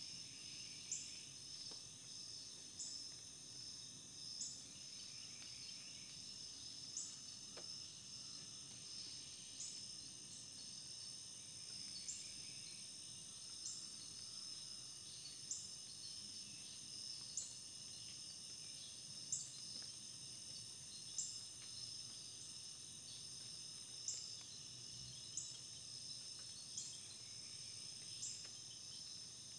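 Insects singing outdoors: a faint, steady high-pitched trill, with a short sharp chirp repeating about every two seconds.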